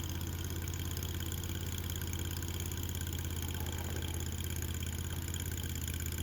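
Mini skid steer's small engine running steadily at idle, an even low drone with no change in speed.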